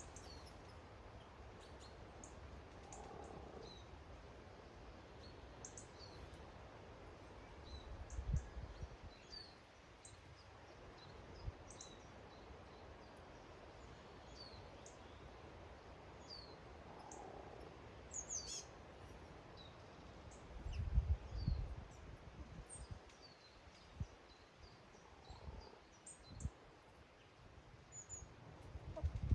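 Small garden birds giving short, high chirps scattered throughout, over a steady outdoor hiss, with a few low thumps about eight seconds in and again around twenty-one seconds.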